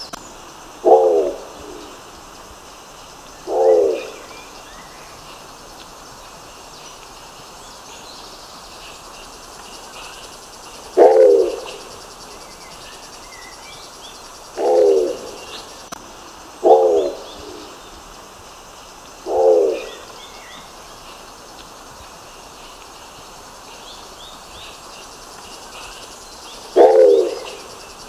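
Nicobar pigeon giving seven short, low coos at irregular intervals, each under a second long, with faint chirps of small birds in the background.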